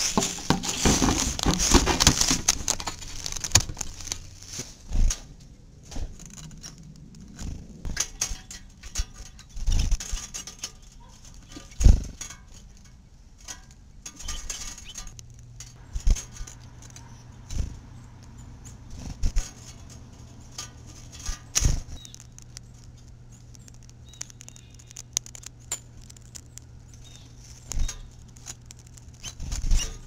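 Rustling and knocking as a camera is handled and set in place on a wooden bird-feeder tray, then a run of sporadic short taps and knocks. A faint low steady hum comes in about halfway.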